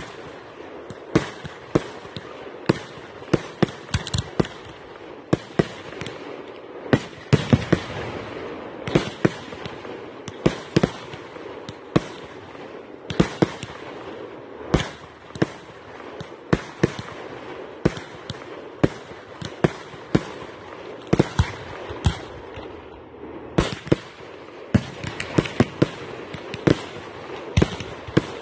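Aerial fireworks display: a long, irregular barrage of shell bursts, one to three sharp bangs a second, over a steady hiss between them.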